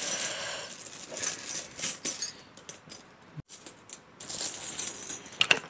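Metal coins clinking and jingling against each other as they are handled and sifted through a pile, in irregular clusters of sharp clinks, with a busier run about five seconds in.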